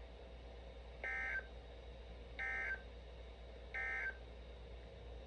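Three short, identical bursts of SAME digital data tones from a NOAA Weather Radio broadcast, heard through a Midland WR-120 weather radio, about a second and a half apart over a faint steady hum. This is the end-of-message code that closes an alert bulletin.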